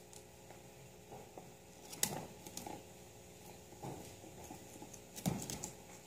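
A guinea pig eating fresh greens and moving about on the plastic floor of its cage: irregular small clicks and rustles, with two louder taps, one about two seconds in and one about five seconds in.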